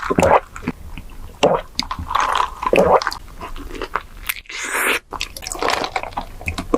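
Close-miked mouth sounds of eating boba: wet, squishy chewing and biting of tapioca pearls in irregular bursts, with a brief hiss about four and a half seconds in.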